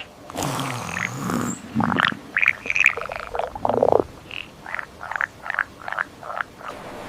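Frog croaking: a run of short, separate croaks, about two a second.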